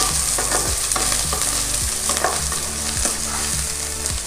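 Fried idli cubes with onion, capsicum and coriander sizzling in a non-stick kadai while a wooden spatula stirs and scrapes the pan in quick, regular strokes, about three a second, over a steady frying hiss.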